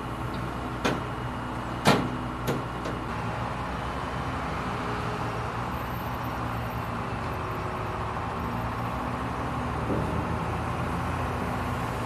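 Truck-mounted crane's engine running steadily, with three sharp knocks in the first few seconds, the second the loudest.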